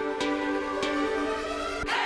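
Soft background music with slow, held notes, swelling near the end.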